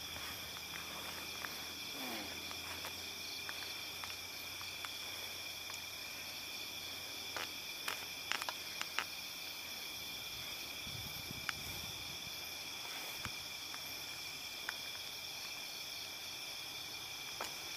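Night insect chorus: several steady high-pitched tones layered together, with a few faint clicks about halfway through.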